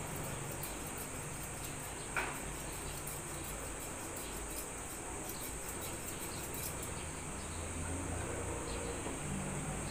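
Faint, rapid snipping of barber's scissors cutting hair, in runs of quick small clicks that thin out about seven seconds in, over a steady high whine.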